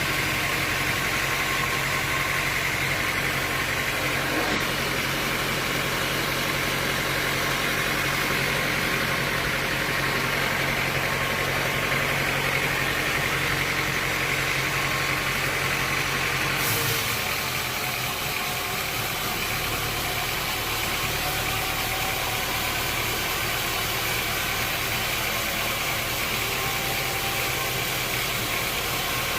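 Sawmill machinery running steadily with a low motor hum and no cutting load heard. The sound changes abruptly about two-thirds of the way through, as if at a cut to another part of the mill.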